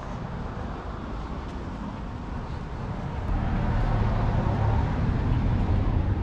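Low, rumbling outdoor noise, louder from about three seconds in.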